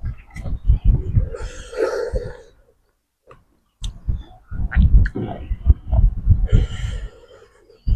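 Close-miked chewing and mouth smacking of someone eating grilled catfish, with a pause about three seconds in. Two breathy drawn-in sounds come about two seconds in and again near the seventh second.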